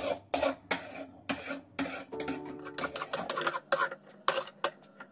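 Metal spoon scraping and knocking against a steel cooking pan in repeated short strokes, about two to three a second, as cooked oats are scooped out.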